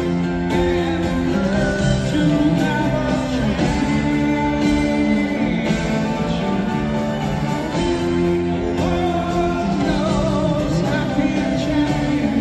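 Live rock band playing a slow ballad section, with a slide guitar gliding between notes over held chords.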